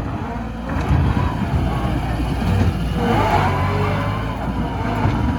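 Skid steer's diesel engine running under load, revving up and down as the machine works.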